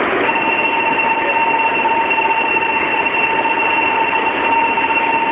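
A steady electronic warning tone starts about a quarter of a second in and holds without a break, over the continuous running noise of a Shinkansen train at the platform.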